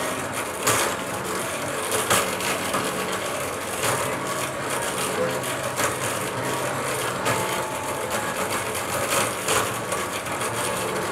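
Jointed wooden pendulum-arm mechanism swinging on its pivots: a steady mechanical whirr with a sharp knock every one to two seconds as the arms swing through.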